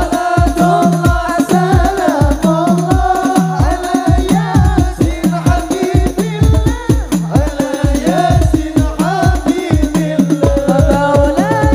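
Hadroh ensemble performing live: men singing over rebana frame drums, with deep drum strokes keeping a steady, driving beat.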